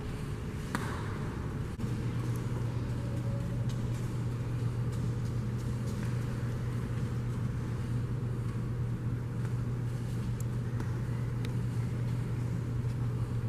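Steady low hum over a soft rushing noise, stepping up suddenly about two seconds in, with a few faint clicks.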